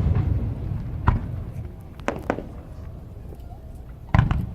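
Fireworks shells bursting overhead: sharp bangs about a second in, a quick pair a little after two seconds, and a louder one near the end, with a low rumble in between.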